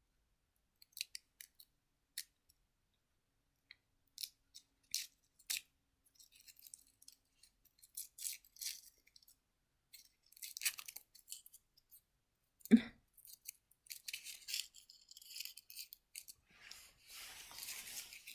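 Foil candy wrapper crinkling and crackling as fingers pick it open, in scattered short crackles that grow denser near the end, with a single thump about two-thirds of the way through.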